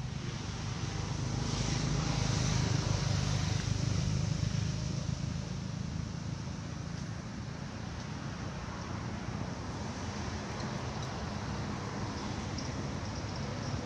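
Low rumble of passing road traffic under a steady outdoor hiss. It swells about two seconds in, then eases to a steadier, lower rumble.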